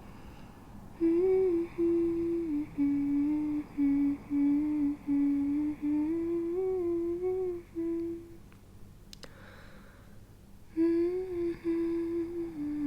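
A woman humming a simple tune in short phrases, stopping for a couple of seconds about two-thirds through and then starting again. A faint steady low rumble of car driving noise runs underneath.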